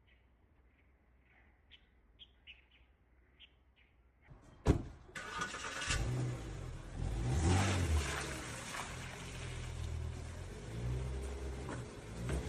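A car engine starts with a sharp click about four and a half seconds in, then runs and revs unevenly with a low note.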